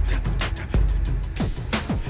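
Background music with a heavy bass beat, fast ticking and falling pitch sweeps.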